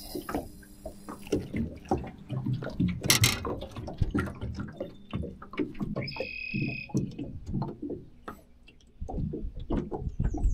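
Small waves slapping against an aluminum boat hull, making irregular hollow knocks and thumps.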